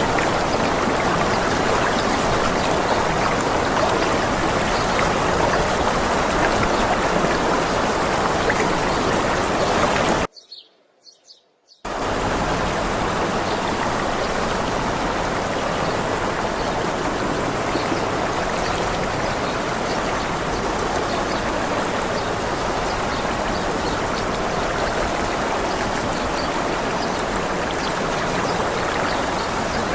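Steady rush of a waterfall. About ten seconds in, the water sound cuts out abruptly for a second and a half, leaving only faint high bird chirps, then starts again.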